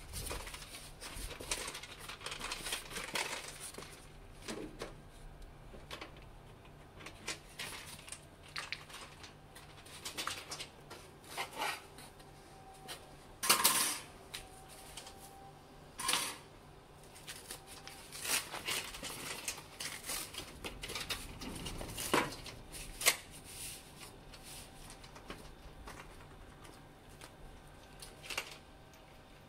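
Scattered clinks, knocks and rustles from handling a coil of foam-insulated copper refrigerant pipe and metal tools, with a few louder knocks about halfway through.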